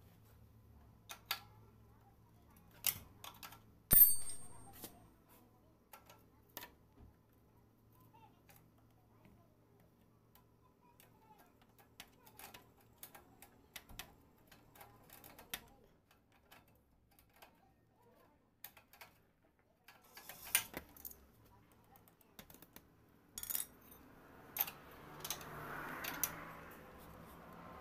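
Metal hand tools clinking and clicking against the bolts of a motorcycle's rear wheel and drum-brake fittings as a spanner works them. A single sharp metallic clank about four seconds in is the loudest sound and rings briefly. A soft rustle swells near the end.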